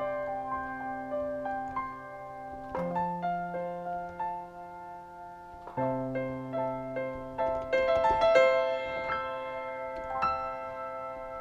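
Yamaha MX49 synthesizer playing its Concert Grand piano voice: a simple slow melody over held low notes, with new chords struck about three and six seconds in.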